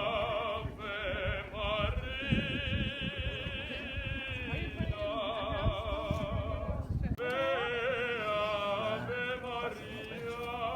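Operatic singing: a voice holding long notes with a wide, even vibrato, one phrase breaking off about seven seconds in before the next begins.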